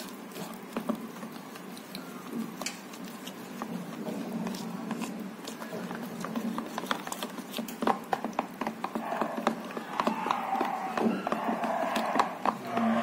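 Spoon beating a thick gram-flour and rice-flour batter in a plastic bowl: a quick run of wet taps and clicks, louder in the second half.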